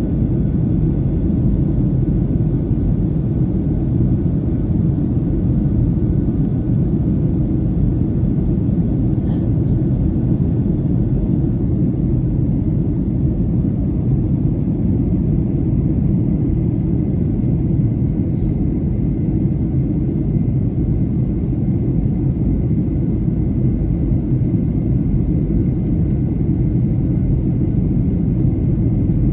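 Steady deep cabin rumble of a Boeing 737-800 in descent: airflow and engine noise heard from inside the passenger cabin. Two faint clicks come through, about nine and eighteen seconds in.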